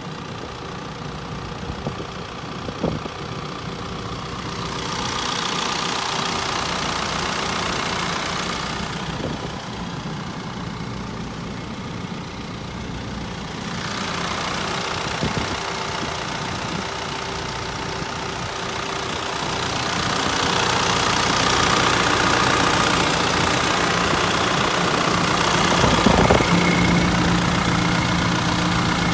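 Hino Dutro truck engine idling steadily, its level rising and falling, with a few brief knocks, the loudest near the end.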